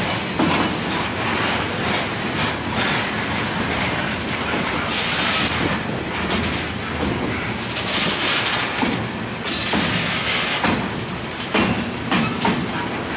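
Freight train cars rolling past at close range: a continuous rumble and clatter of steel wheels on rail, with scattered knocks and a few brief stretches of louder high-pitched wheel noise.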